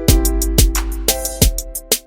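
Background music with a steady beat: a hip hop-style track with a deep bass line and drum hits about twice a second.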